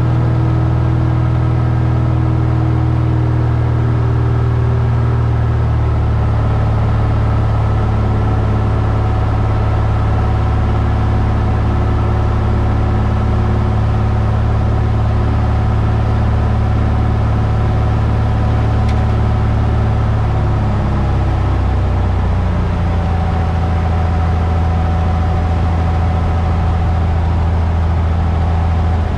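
Cessna 172's piston engine and propeller droning steadily, heard from inside the cabin. The engine note drops slightly about six seconds in, then steps down more clearly about twenty-one seconds in as the engine speed is brought back.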